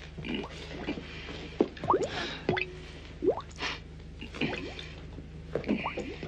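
A string of short plopping, squelching sound effects, each a quick upward sweep in pitch, about eight of them at irregular intervals, over a steady low hum.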